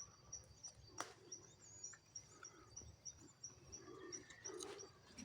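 Faint, high-pitched insect chirping that repeats evenly about three times a second, with a single sharp click about a second in.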